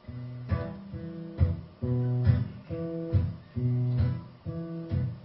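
Acoustic guitar strumming chords in a steady rhythm, the opening of a live song starting right after the count-in pause.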